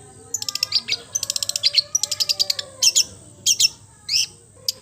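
Long-tailed shrike (cendet) singing a chattering medley of mimicked calls: rapid trains of sharp, high chip notes, about ten a second, broken by a few quick downward-sweeping whistles.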